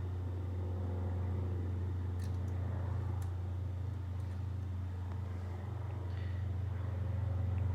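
A steady low mechanical hum, with a few faint clicks of a hand tool tightening a fitting on the pressure washer's carburetor.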